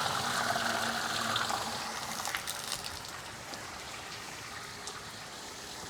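Water draining out of a pressure-washing buffer tank through its shutoff valve, a steady hissing gush that drops to a fainter run about two seconds in, with a few light clicks.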